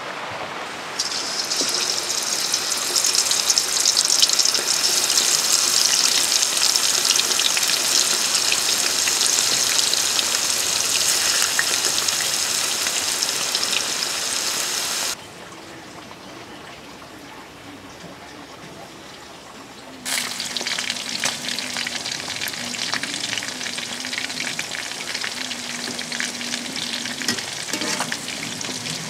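Marinated chicken pieces deep-frying in hot oil in an iron wok, a loud steady sizzle. It cuts off sharply about halfway through for several seconds of quieter background, then the sizzle starts again.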